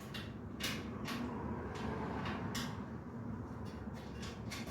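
Scattered light clicks and scrapes of metal grill parts and bolts being handled as the A-bolts are threaded in by hand, a few irregular taps over a steady low hum.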